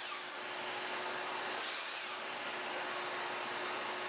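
Steady low background hiss with a faint constant hum, like a fan or small motor running. No saw cut is heard.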